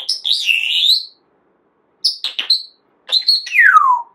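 Pet parrot whistling and chirping in three bursts: a warbling whistle, a few short sharp chirps, then a long whistle that falls steadily in pitch.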